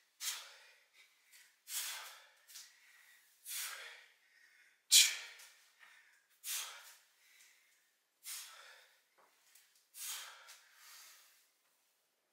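A man's short, forceful breaths under exertion during kettlebell reps: about seven hard puffs, one every second and a half to two seconds.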